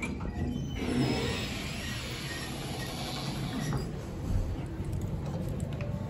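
Lift (elevator) running: a steady low rumble, with a stretch of hissing noise from about one to four seconds in and a short knock a little after that.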